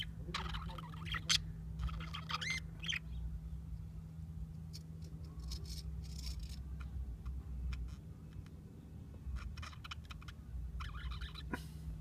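English budgerigars chattering in warbling bursts in the first few seconds and again near the end, with scattered soft clicks in between, over a steady low hum.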